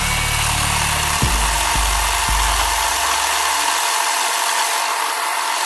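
Worx cordless electric chainsaw running and cutting into a pear tree limb overhead: a steady rasp of the chain through the wood. A low hum underneath fades out about three to four seconds in.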